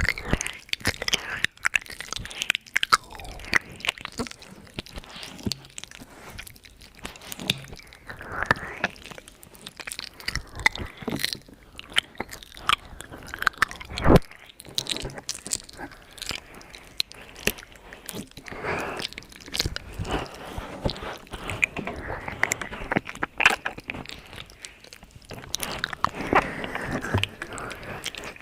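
ASMR mouth sounds: irregular clicks and smacks of the mouth, with a louder click about halfway through.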